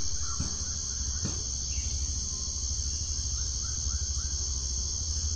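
Outdoor garden ambience: a steady high insect drone, like crickets, over a low rumble, with four faint short chirps about two-thirds of the way through.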